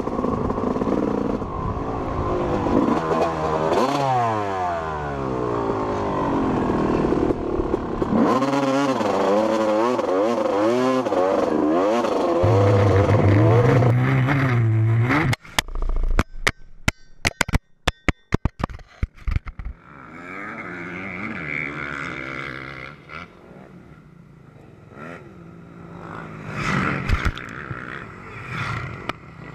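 Motocross bike engine revving hard, its pitch rising and falling as the throttle opens and closes, then held high just before the sound cuts off abruptly about halfway through. A scatter of sharp knocks and clatter follows, then a quieter rushing noise that swells briefly near the end.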